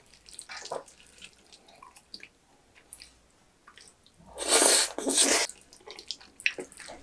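Wooden spoon scraping and clicking against a ceramic baking dish while gathering sauced jajang noodles. About four seconds in comes the loudest sound, a wet slurp and chew of a spoonful of noodles lasting about a second, and light scraping resumes near the end.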